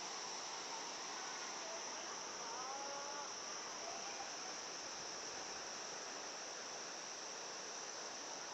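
Steady high-pitched drone of an insect chorus, like crickets or cicadas, over an even rushing hiss. A few short pitched calls come about halfway through.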